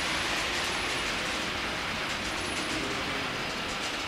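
H0-scale model freight train rolling along the layout track: a steady running noise with a few faint clicks as the wagons pass over the rail joints.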